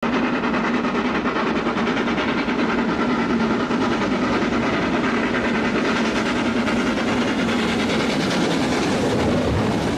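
Steam locomotive working hard as it hauls a train, its exhaust and running gear making a steady, dense noise.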